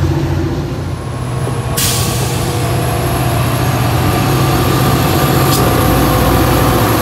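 Diesel commuter-train locomotive engine running with a steady low drone. About two seconds in the sound changes abruptly to an EMD F40PH locomotive passing close, its engine drone joined by steady higher tones, with a brief click near the end.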